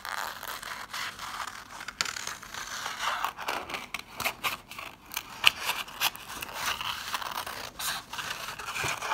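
Scissors cutting through a sheet of coloured paper in a run of short snips, with the paper rustling as it is turned against the blades.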